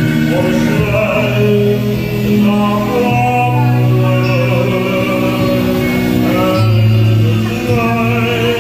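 A man singing a slow melody into a handheld microphone over an instrumental backing with long held bass notes.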